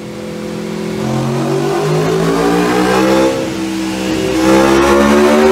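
Aprilia RSV4 RR V4 engine with an Akrapovič exhaust and no catalytic converter, revving hard under load on a braked dynamometer. The pitch climbs, dips briefly about three seconds in, then climbs again as the level builds.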